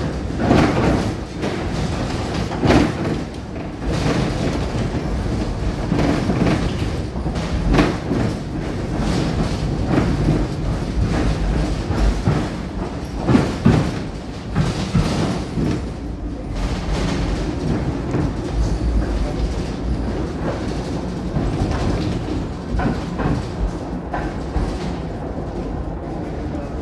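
Ride noise inside a V3A-93 articulated tram running along a street track: steady wheel and running noise with irregular knocks and clatter from the wheels and car body.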